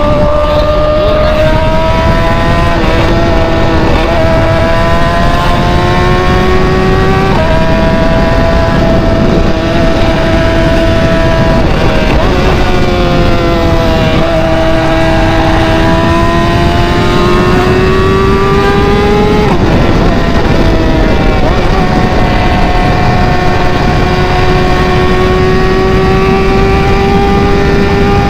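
Straight-piped BMW engine running loud through an open exhaust while driving: the note slowly climbs in pitch and breaks off with a drop several times, as with gear changes.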